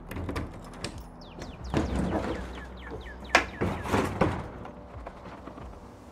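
Plastic clicks, knocks and clunks from a Thule Force XL roof cargo box as its lid is unlatched and lifted open, the sharpest click about three and a half seconds in.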